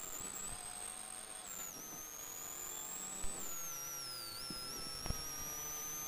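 Rally car intercom recording full of electrical interference: thin high whines that slide up and down in pitch over a steady hum, with a couple of sharp crackle clicks.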